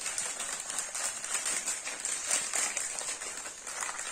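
Plastic candy wrapper crinkling and crackling irregularly as small hands squeeze and turn the packet.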